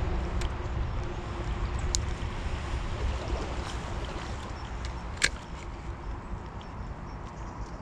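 Low rumbling noise of wind and movement on a body-worn camera's microphone, easing off gradually, with a few faint clicks and one sharp click about five seconds in.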